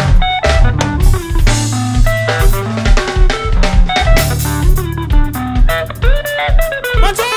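Live sungura band playing: quick, bright electric guitar lines over bass guitar and a drum kit keeping a steady, driving kick-drum beat.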